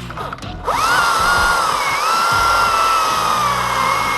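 Two-stroke chainsaw revving up sharply about a second in, then held at high, nearly steady speed, its pitch sagging briefly once.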